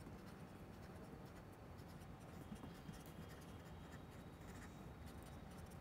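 Faint scratching of a felt-tip pen writing words on paper.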